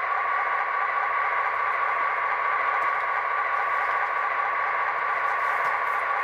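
Soundtraxx Tsunami 2 sound decoder in an HO-scale GP15-1 locomotive playing a steady diesel engine sound through the model's small speaker, thin and without bass. The engine sound is running on its own after track power brings up the startup sequence.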